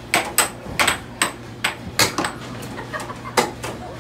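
Air hockey puck being struck by mallets and clacking off the table's rails in a fast rally: about ten sharp plastic clacks at uneven intervals, over a steady low hum.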